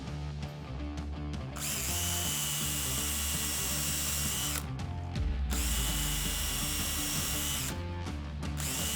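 Power drill running in three long runs of a few seconds each, a steady high whine, drilling or driving screws for a door hinge into oak lipping, over background music.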